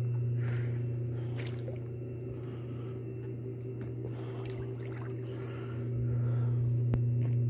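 Hot tub's jet pump humming steadily, with water sloshing in the tub.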